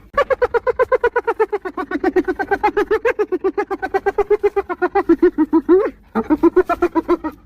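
Spotted hyena giggling: a fast run of short, pitched, yelping notes, about nine a second, falling slightly in pitch, that breaks off about six seconds in and starts again for a second run.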